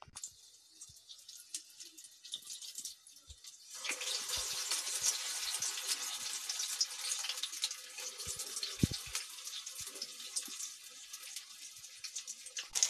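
Urad dal and pea bondas deep-frying in hot oil, a steady crackling sizzle that grows much louder about four seconds in.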